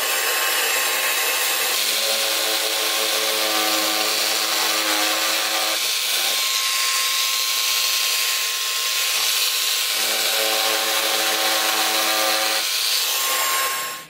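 Power tool running steadily while carving foam board, with a lower hum that comes in twice, about two seconds in and again about ten seconds in.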